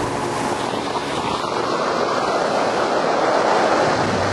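Steady rush of wind and water from a fishing boat running at speed over the sea, building louder about three seconds in, with the engine's hum faint underneath.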